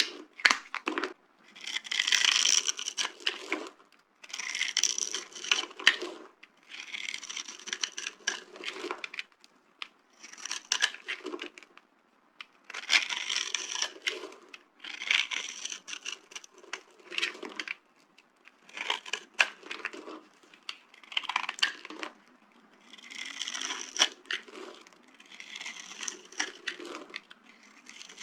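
Dry carved soap being crushed: a series of crunchy, crackling crushes, one about every two seconds, each full of small sharp cracks.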